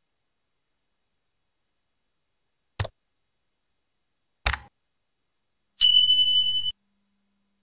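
Subscribe-button animation sound effect: two mouse clicks about a second and a half apart, then a short, high, steady bell-like notification ring lasting about a second.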